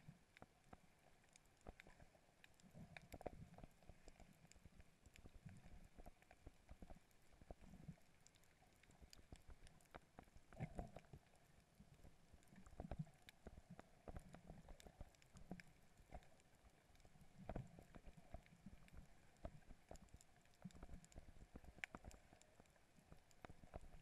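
Near silence: faint muffled underwater sound picked up by a GoPro camera held under water, with scattered faint clicks and soft low bumps.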